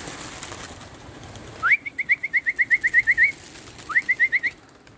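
Loud whistled notes around 2 kHz: a rising slide into a quick trill of about a dozen short notes, then a second, shorter slide-and-trill near the end.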